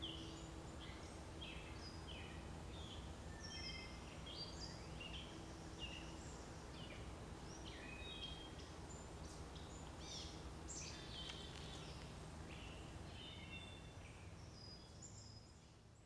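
Several songbirds singing, faint, a busy mix of short chirps and whistles over a low steady background hum, fading out near the end.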